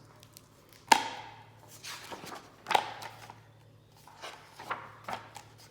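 Handling noise from a book as it is opened to the first page: a few sharp knocks and clicks, the loudest about a second in and another near three seconds in, with fainter ones between.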